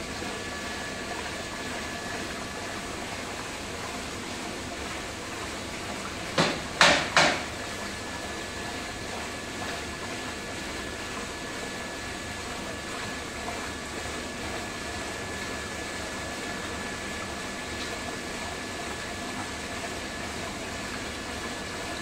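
Water pouring from an inlet pipe into the chamber of a combi drum filter and churning, a steady rushing with a faint high whine. Three sharp knocks come in quick succession about a third of the way in.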